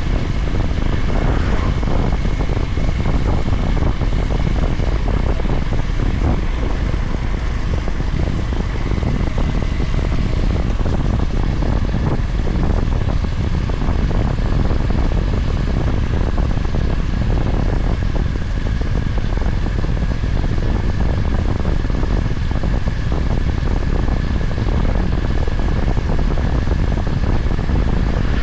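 Honda GB350's air-cooled single-cylinder engine running at a steady cruise on the road, with heavy wind rush over the microphone.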